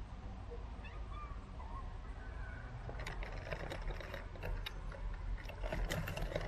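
A cat licking and pawing at a plastic feeding tray, a flurry of small clicks and scrapes starting about halfway in.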